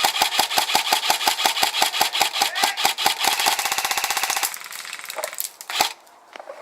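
Airsoft guns firing on full auto: a rapid, even stream of shots at about eight a second, quickening about three seconds in and stopping about four and a half seconds in, followed by a few single shots.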